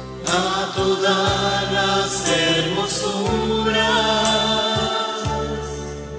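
Parish choir singing a hymn, voices moving over steady held low notes.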